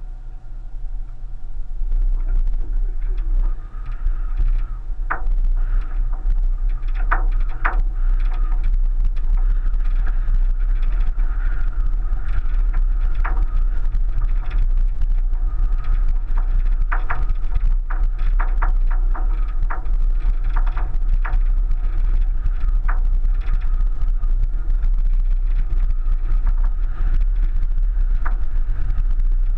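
1999 Subaru Forester driving slowly over a rough, rutted dirt track with loose stone, picked up by a camera on the roof: a steady low rumble that builds over the first couple of seconds, with scattered sharp knocks and clicks as the car jolts over the ruts.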